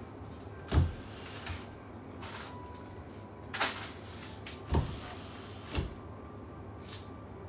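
Sliding lids of an ice-cream chest freezer being slid and knocked as someone reaches into it. There is a sharp bang about a second in, then scraping and a few more knocks.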